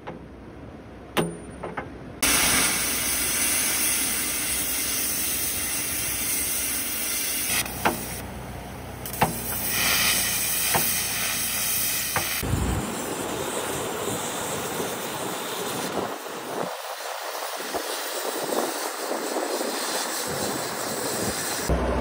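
A sharp knock on steel, then from about two seconds in a loud, steady hiss of a metal-cutting torch working the steel of an excavator bucket to remove the old tooth root. The hiss changes character abruptly a few times.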